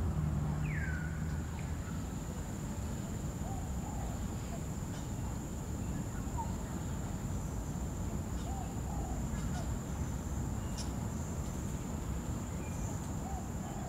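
Outdoor garden ambience: insects keep up a steady high-pitched drone, with a few faint bird chirps scattered through it and one falling call right at the start. A low hum fades out in the first second or two.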